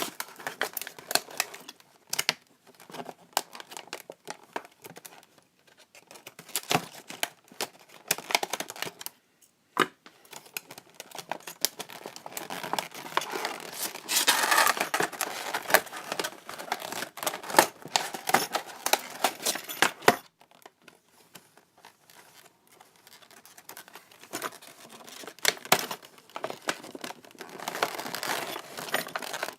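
Packaging being torn open and crumpled by hand: irregular crinkling, rustling and tearing, busiest in the middle and thinning out near the end.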